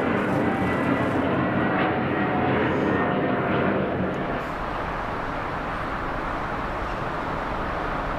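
Jet airliner engines running with a whine that slides slightly down in pitch, then dropping about four seconds in to a steadier, duller rumble.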